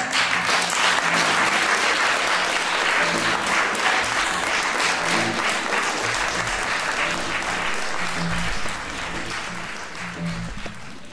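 Audience applauding at a curtain call, with music playing underneath. The clapping thins out over the last couple of seconds.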